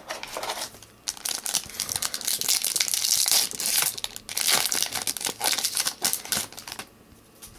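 Foil wrapper of an Upper Deck Victory hockey card pack crinkling and tearing as the pack is opened. The crackling starts about a second in and stops about seven seconds in.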